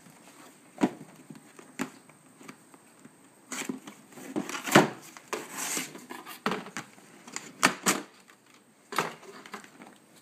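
Irregular sharp clicks and knocks, a dozen or so, bunched most closely a few seconds in: small hard objects being handled or set down.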